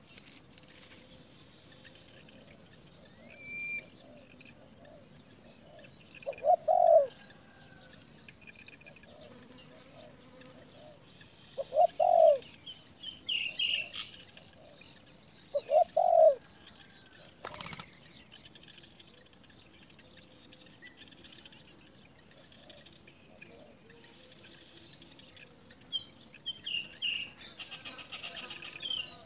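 Birds calling: three loud, low, arched calls about five seconds apart, with shorter high chirps in between and a flurry of chirps near the end, plus a single sharp click.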